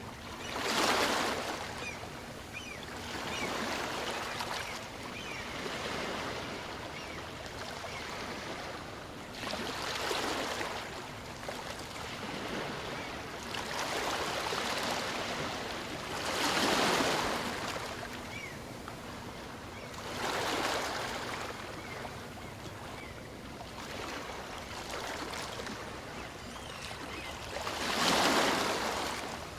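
Small waves of a calm sea breaking and washing up on a beach over and over, a hiss that swells with each wave, every few seconds, some waves louder than others.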